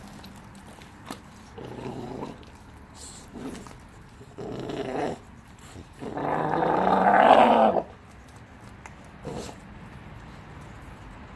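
Renascence Bulldogge puppy growling while guarding a raw turkey carcass from its littermate. There are several short growls, and a longer, louder growl of about two seconds past the middle.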